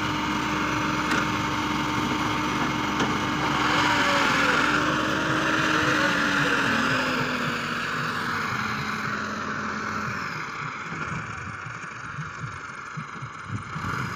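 Tractor engine running under load to drive the hydraulic jack that tips a trolley, with earth pouring and sliding out of the raised bed. The engine's steady tone drops a little in pitch midway and fades after about ten seconds, leaving a lower rumble.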